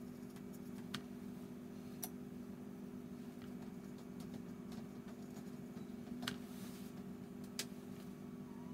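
Quiet room tone: a steady low hum with a few faint, sharp clicks scattered through it.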